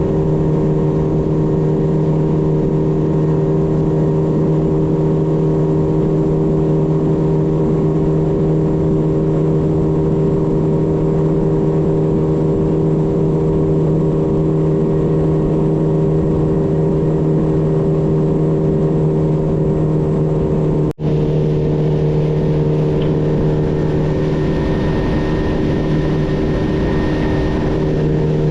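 Boat engine running at a steady speed while the boat travels, a loud even hum with a brief dropout about twenty-one seconds in.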